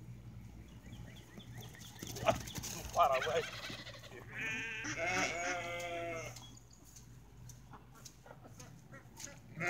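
A farm animal bleating: a short call about three seconds in, then a long quavering call lasting about two seconds. A couple of sharp knocks come just before.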